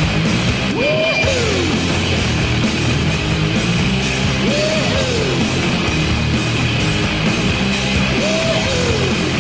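Loud, heavy rock goal song with distorted guitars and drums. A rising-then-falling sliding sound comes round about every four seconds, three times in all.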